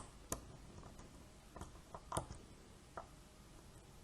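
Faint, irregular clicks and ticks of a flag pick and tension tool working the pins inside a Burg Wächter Boccia dimple padlock, a handful of sharp ticks spread over the few seconds.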